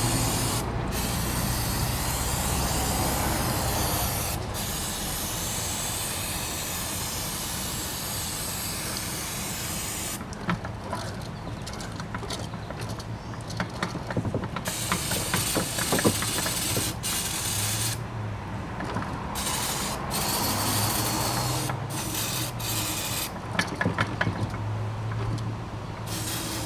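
Aerosol non-chlorinated cleaner being sprayed into an open differential to strip grease from the spider gears. A steady hiss runs for about ten seconds with two brief breaks, then comes in shorter spurts mixed with clicks and knocks from handling the parts.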